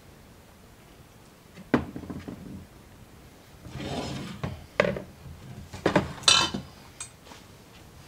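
Kitchenware handled on a wooden table: a glass baking dish of dry ramen blocks and a plastic mixing bowl. There is a sharp knock about two seconds in, a scrape around four seconds, and a run of sharp clacks over the next few seconds.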